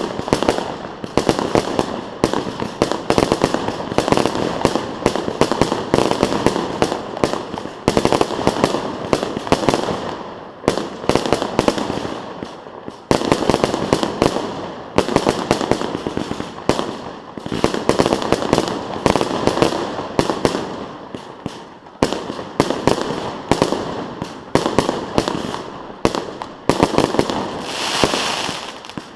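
Fireworks display: a dense, continuous barrage of bursting shells and crackling, many sharp bangs a second with only brief lulls.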